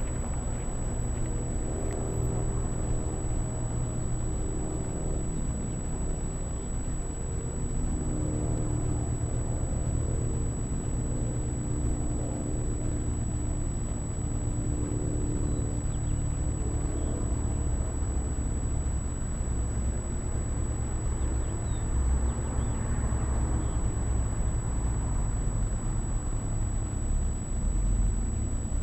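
HJ450 quadcopter's motors and three-blade propellers humming, several tones wavering in pitch as the throttle changes, over a steady low rumble.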